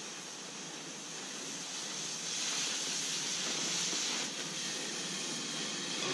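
Oxy-fuel cutting torch hissing steadily as it cuts through the wall of an 8-inch steel pipe. It gets louder about two seconds in, as the cut throws a heavy shower of sparks.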